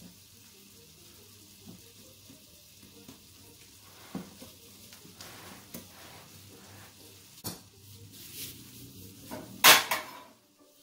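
Wire whisk stirring flour into beaten eggs in a ceramic bowl, with light scrapes and clinks of the whisk against the bowl, and one loud knock near the end.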